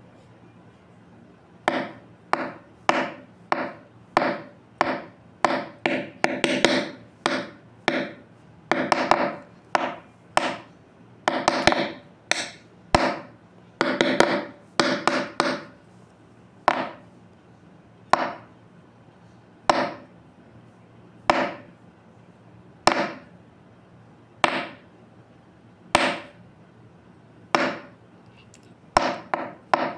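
A long series of sharp knocks or blows, each with a short ringing decay. They start about two seconds in, come in quick irregular clusters at first, then slow to single blows spaced about a second and a half apart.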